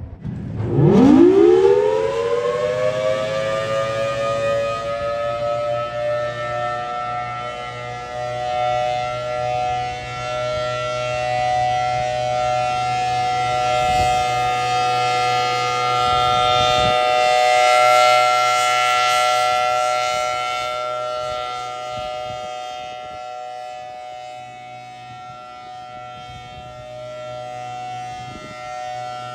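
Federal Signal Thunderbolt 1000T outdoor warning siren sounding the steady Alert signal: it winds up from a low growl to full pitch within a few seconds, then holds two close steady tones together, swelling and fading in loudness as the rotating head sweeps around.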